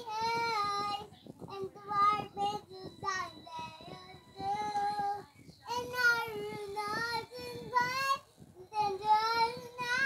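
A young girl singing unaccompanied, a song with her own made-up lyrics, in short phrases of held notes that slide up and down with brief breaths between them.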